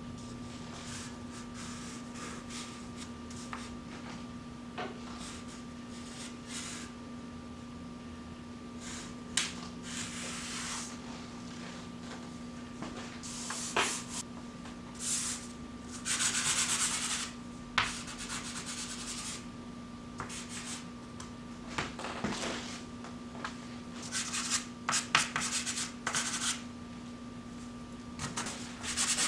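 Pastel and charcoal sticks scratching and rubbing across brown paper in irregular strokes of varying length, over a steady hum.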